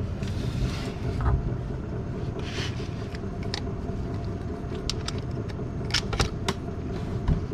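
Several sharp metal clicks and clinks from pliers and small parts being handled, over a steady low background rumble.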